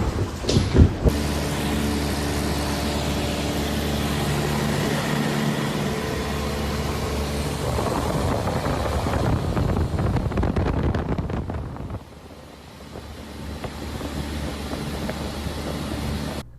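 A motor vehicle's engine running steadily, with a low hum, after a few knocks in the first second. It drops away sharply about twelve seconds in and then builds up again.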